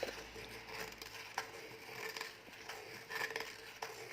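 Light clicks and scraping of plastic measuring cups and a spoon being handled and set down on a table, over a faint steady hum.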